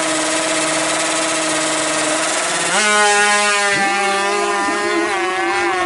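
155cc drag bike engine held at high revs on the start line, then launching about three seconds in: the note steps up and gets louder, with brief dips in pitch as it shifts gears while accelerating away.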